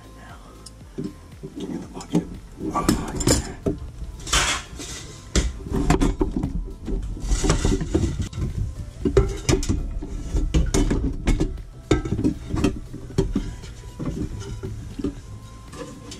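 Irregular metallic clinks, clicks and knocks with brief rustling as a braided stainless-steel faucet supply line and hand tools are handled and disconnected under a kitchen sink.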